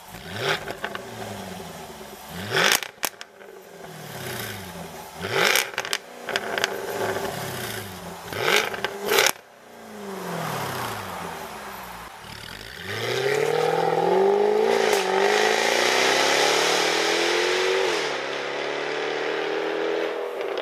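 A Jaguar F-Type V8 S's supercharged 5.0-litre V8 revved hard several times while standing, each blip rising and falling in pitch, with sharp pops and crackles from the quad exhaust as the revs drop. In the second half the car accelerates in one long rising pull, with a short dip about two-thirds of the way through, and eases off near the end.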